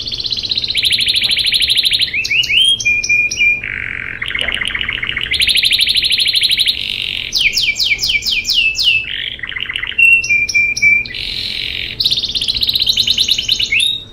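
Domestic canary singing a continuous rolling (ngerol) song. Long rapid trills, each held a second or two, alternate with quick rising and falling sweeps and short steady whistled notes, and the song breaks off right at the end.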